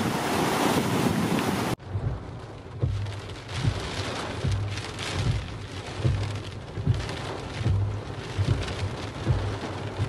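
Wind buffeting the microphone over waves washing against a jetty, cut off suddenly after about two seconds by rain hitting a car's windscreen and roof, heard from inside the car, with an uneven low rumble and many sharp ticks of drops.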